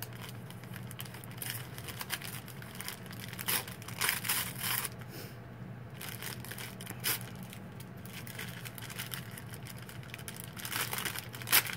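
Paper sterile dressing packages being peeled apart and handled, rustling in short spells about four seconds in, again at seven seconds, and loudest near the end.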